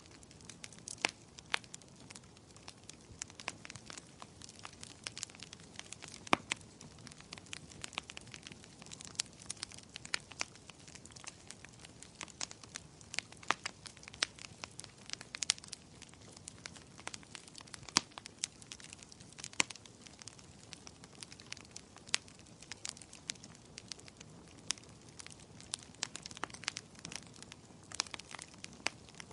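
Firewood burning in a fireplace: irregular sharp crackles and pops over a low, steady rush of flames.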